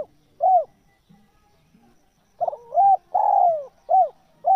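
Spotted dove cooing: two short coos close one phrase, then after a pause of nearly two seconds a full phrase of short coos with one long, falling coo in the middle.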